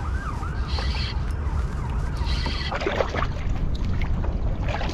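Wind buffeting the microphone on open water, a steady low rumble. A faint wavering whine repeats a few times at the very start.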